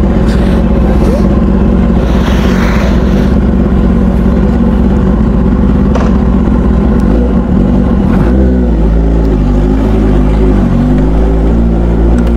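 Kawasaki ZX-10R's inline-four engine, fitted with a loud SC-Project aftermarket exhaust, idling steadily. About eight seconds in, its note starts to rise and fall as the bike pulls away at low revs.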